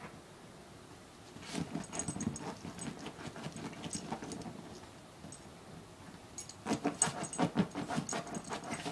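A dog rummaging with its head buried between couch cushions, scrabbling and scuffing at the upholstery while it hunts for a dropped bone. The rapid scuffing and clicking comes in two spells: the first about a second and a half in, the second and louder about six and a half seconds in.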